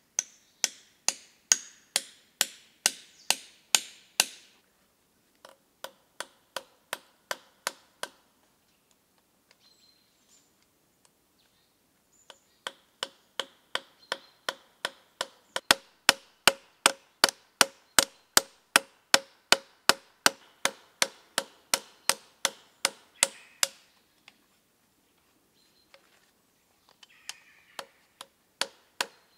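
Light, evenly spaced strikes from hand tool work on an old cleaver, about two or three a second, in runs broken by short pauses. Several of them carry a faint metallic ring.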